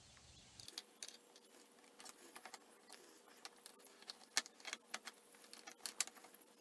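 Faint, scattered light metallic clicks and small rattles of a throttle cable and its fittings being handled and hooked into place, a few sharper clicks near the end, over a faint steady hum.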